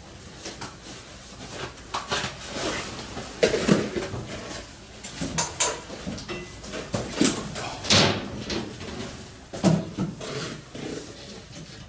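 Irregular knocks, clicks and short scrapes of hands working on the aluminium frame and panels of a van's box body, with the loudest knock about eight seconds in.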